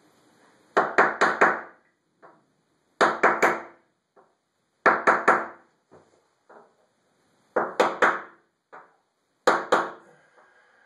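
Mallet striking a steel center punch held against granite wall tile, in five quick bursts of three or four sharp taps a couple of seconds apart, each ringing briefly. The punch is nicking the tile at pencil marks so the drill bit won't wander.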